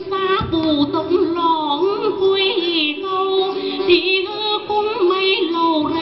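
Woman singing a Tày folk song in a high voice with vibrato, over instrumental accompaniment.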